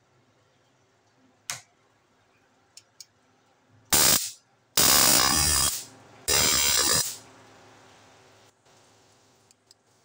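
Flashlight stun baton arcing across its electrodes in three loud bursts: a short one about four seconds in, then two of about a second each. A single sharp click comes about a second and a half in.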